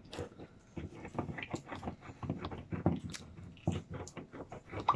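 Hand-held can opener cutting around the lid of a tin of condensed milk: a run of irregular metallic clicks as the blade works through the tin.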